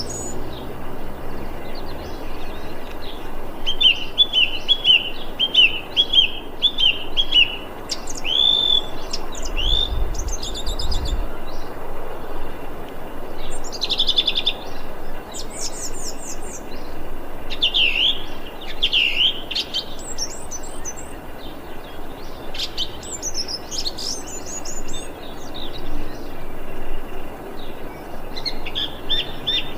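Thrush singing in separate phrases: a run of about eight quickly repeated notes, then varied whistled and rasping phrases with pauses between, and another run of repeated notes near the end.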